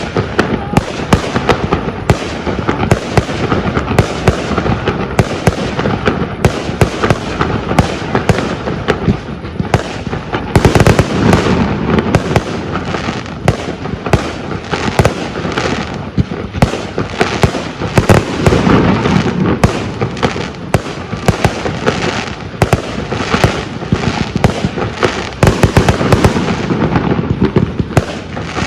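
Aerial fireworks display: shells bursting in a dense, continuous barrage of bangs over a rolling rumble, with heavier volleys about a third and two thirds of the way through.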